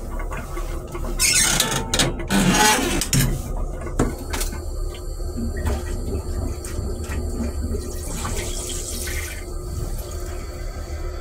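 Metro-North M3 railcar toilet flushing: a loud burst of rushing noise a couple of seconds in, a sharp click, then blue-dyed flush liquid washing into the stainless steel bowl, over the railcar's steady low rumble.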